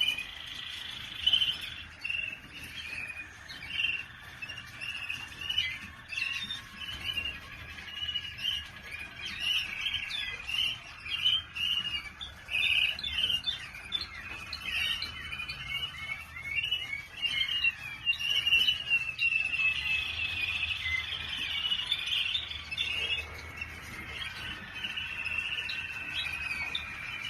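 Waterslager canary song: a continuous run of quick trills and chirps, with longer held whistled notes about twenty seconds in and again near the end.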